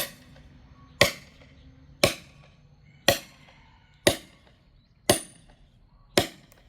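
Firewood being split by hand: seven sharp chopping blows into very hard wood, struck about once a second in a steady rhythm.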